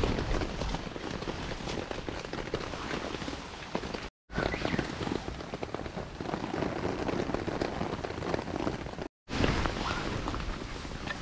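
Steady rain pattering, mixed with rustling and small clicks of wet sticks and branches being gathered by gloved hands. The sound breaks off completely for a moment twice.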